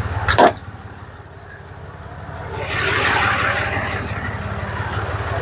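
Ram 2500's Cummins inline-six diesel running with a steady low drone, broken less than half a second in by one short, sharp, loud knock. About two and a half seconds in, a loud rushing, hiss-like noise swells up over the engine and carries on.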